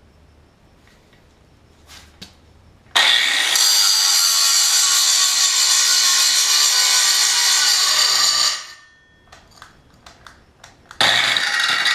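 Chicago Electric 7-inch angle grinder grinding metal in two runs. After a few light clicks it starts about three seconds in and grinds loudly for about five seconds, then stops. After a short pause with a few clicks it starts grinding again near the end.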